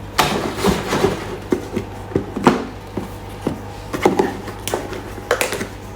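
Handling noise: irregular light clicks and knocks of the hair dryer and its parts being picked up and set down.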